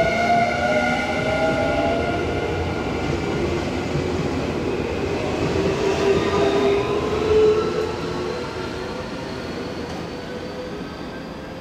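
Nankai Limited Express Southern electric train passing close by: a steady rolling roar of wheels on rail, with whining tones that fall in pitch. The sound fades over the last few seconds as the train moves away.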